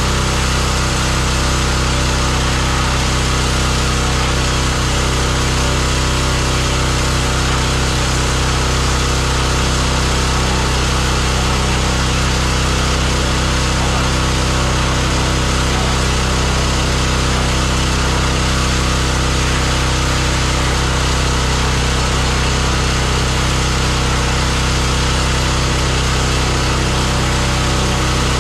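Pressure washer running steadily: a constant motor hum with a hiss over it, unbroken throughout.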